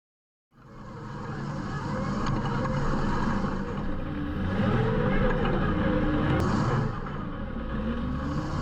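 Off-road side-by-side's engine running with its revs rising and falling, fading in about half a second in after a moment of silence.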